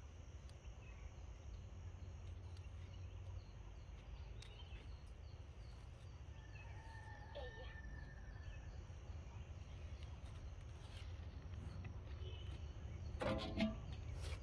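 Rural outdoor ambience: a steady low rumble with faint distant sounds, a faint short tone about halfway through and a brief louder sound near the end.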